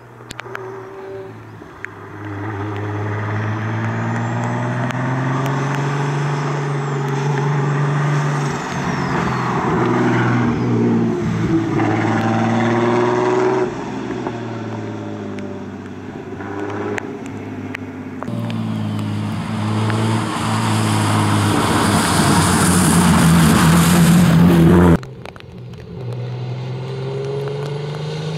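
BMW E30 race car engine at full throttle, revving up through the gears with a drop in pitch at each upshift. Near the end it passes close and gets loud, with a hiss of tyres on the wet road, then cuts off suddenly. The engine is then heard again more quietly, climbing in revs.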